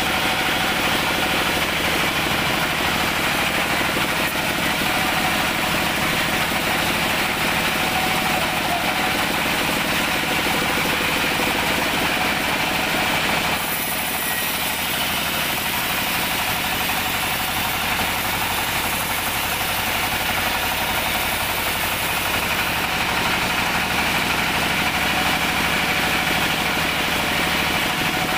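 Large band sawmill running steadily with an engine-like drone as a teak log is pushed through its blade. About halfway a high hiss comes in for roughly nine seconds while the low hum drops a little.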